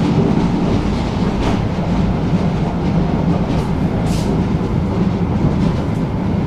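Tram running along the track, heard from inside the passenger car: a steady rumble of the wheels on the rails, with a short high hiss about four seconds in.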